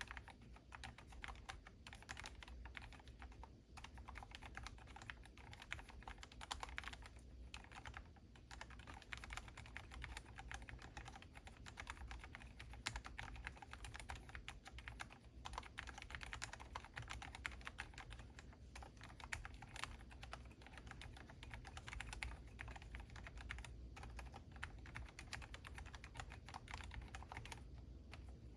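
Continuous typing on a Monstargear MK84S slim mechanical keyboard: a fast, steady run of key clicks broken by a few short pauses.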